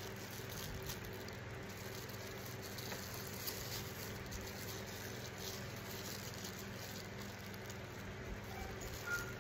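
Faint handling of a small plastic sauce bag being opened and squeezed: light crinkles and a few soft clicks, over a steady low background hum.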